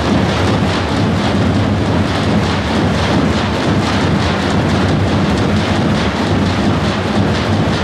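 A whole line of tapans, large double-headed folk drums, played together in a fast, dense roll. The beats blur into one continuous rumble, with no separate strokes standing out.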